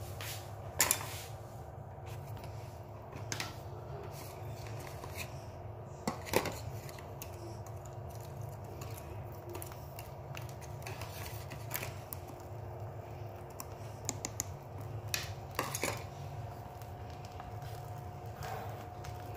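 An egg frying in oil in a pan, under a steady low hum, with a few sharp clicks of a utensil against the pan; the loudest clicks come about a second in and about six seconds in.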